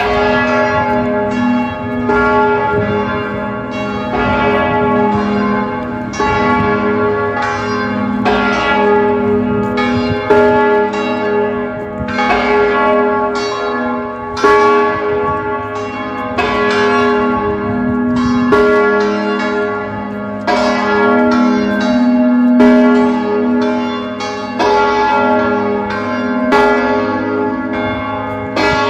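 Church bells of Liverpool Metropolitan Cathedral's tower ringing, struck repeatedly at about one to two strokes a second, each stroke ringing on and overlapping the next.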